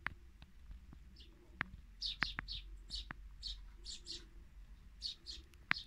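Small birds at a peanut feeder: a few sharp beak taps on the feeder, with short, high chirps repeated in quick clusters from about two seconds in.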